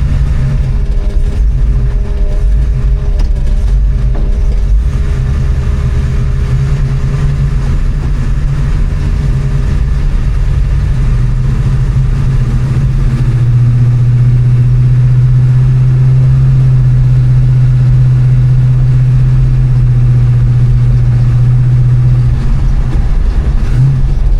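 Big-block 454 V8 of a 1969 Chevrolet C10, heard through a custom stainless exhaust with Flowmaster Flow FX straight-through mufflers as the truck is driven. A low exhaust drone settles in about halfway through, louder and steady for several seconds, then eases near the end.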